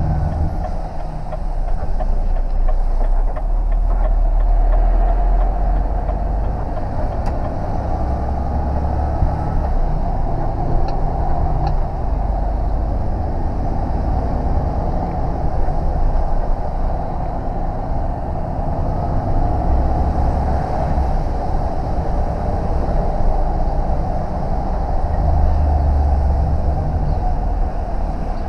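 Heavy truck's diesel engine and road noise heard inside the cab while driving slowly, a low drone that swells and eases several times as the truck pulls and slows.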